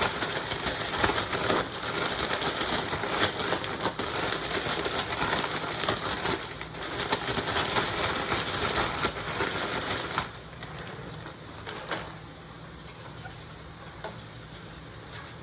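Food frying in hot oil, a dense crackling sizzle that drops suddenly to a much quieter sizzle about ten seconds in.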